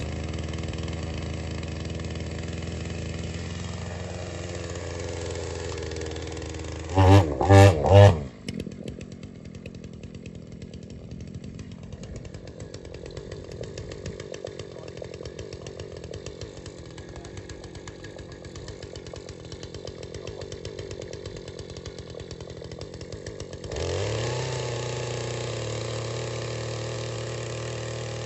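Two-stroke petrol chainsaw idling, revved sharply three times about seven seconds in. It then drops to a quieter, steady rasp without the engine's tone for about fifteen seconds before idling again near the end.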